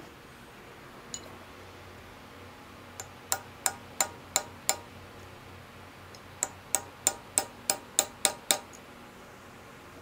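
Light hammer taps on a steel pin punch, metal on metal, driving a small roll pin into a lathe handle's hub. A run of about five sharp taps, a pause, then about ten more at roughly three a second.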